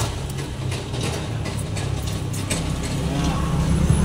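A knife ticking and scraping against a wooden chopping board as a gourami is filleted, with scattered clicks mostly in the first couple of seconds, over a steady low rumble.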